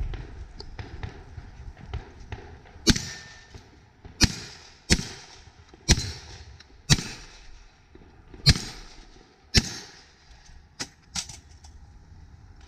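A string of seven loud shots from a Rock Island Armory VR-80 semi-automatic 12-gauge shotgun, fired about a second apart at uneven intervals, followed by a few quieter cracks near the end.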